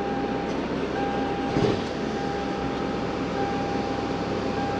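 Vehicle engines idling: a steady running noise with a constant faint whine over it.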